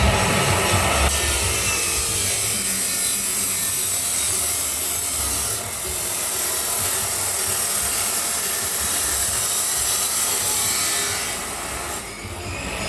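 Grinder cutting through stainless steel pipe: a loud, steady, hissing grind. It dips briefly about halfway and eases off near the end.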